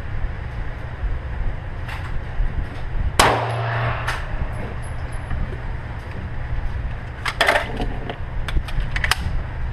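Handgun fired in an indoor range: one loud, echoing shot a little over three seconds in, with fainter sharp cracks and knocks before and after it. A steady low hum runs underneath.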